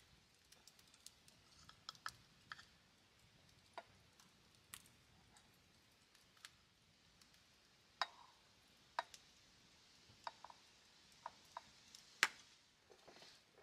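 Rice paddle scooping cooked rice from a rice cooker's metal inner pot. Scattered light clicks and taps come as the paddle knocks against the pot, with the loudest knock near the end.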